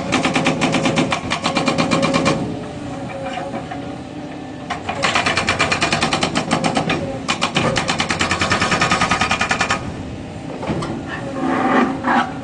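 Hydraulic breaker on a Cat 307 excavator hammering in rapid, evenly spaced blows, in three bursts with short pauses where the excavator's diesel engine is heard running. A brief louder surge comes near the end.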